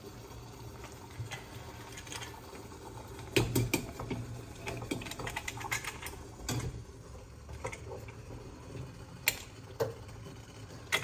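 Stainless-steel pittu steamer clinking and scraping metal on metal as the steaming tube is handled and fitted onto its pot of water on the gas burner. The clinks are scattered and irregular, the loudest cluster about three and a half seconds in, over a steady low hum.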